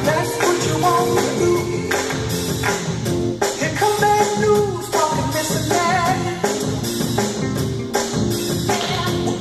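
Pop song with singing over a steady drum beat.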